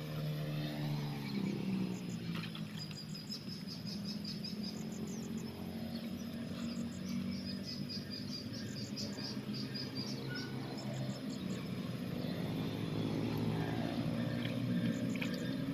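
Insects chirping in short, high-pitched pulsed trills that repeat in groups, over the low drone of a distant engine whose pitch slides up and down a few times.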